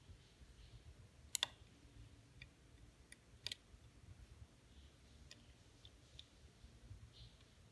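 Small metal watchmaker's tools clicking against the parts of a mechanical watch while its movement is taken apart. The clicks come irregularly over near silence, with two louder double clicks about two seconds apart early on.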